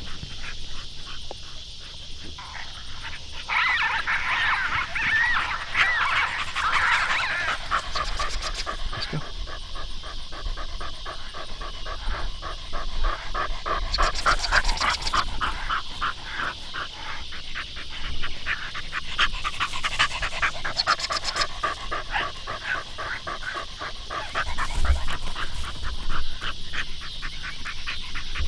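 Decoy dog panting rapidly and steadily, with high whining about four to seven seconds in.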